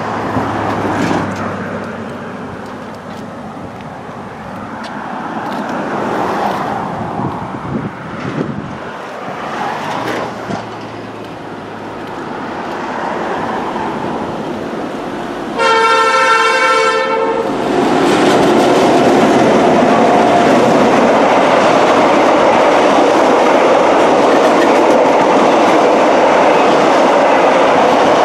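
Diesel train approaching, with one horn blast of under two seconds about 16 seconds in. Then the loud, steady running noise of the EMD diesel-electric locomotives and heritage carriages passing close by, with wheels clattering over the rails.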